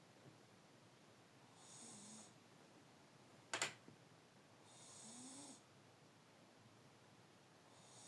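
A sleeping pet snoring softly, one snoring breath about every three seconds, each with a breathy hiss and a low note rising in pitch. A single sharp click, louder than the snoring, about three and a half seconds in.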